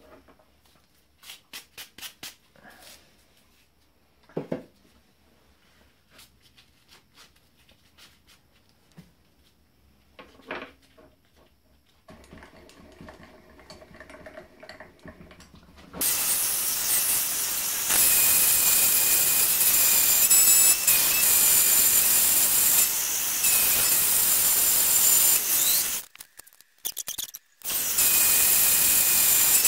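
Sieg X1 mini milling machine end-milling a solid steel block. First a few metal clinks and a knock as the work is handled in the vise, then the spindle motor runs and from about halfway through a loud, hissing cutting noise with a steady high whine, which stops briefly near the end and starts again.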